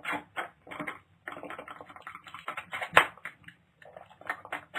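A small paper milk carton crackling and clicking as milk is sucked out through its straw and its sides cave in, with one sharper crack about three seconds in.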